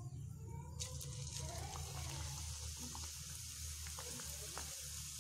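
Hot oil in a frying pan starting to sizzle as stuffed dough parcels are dropped in, the hiss setting in about a second in and running steadily with a few small crackles, over a low steady hum.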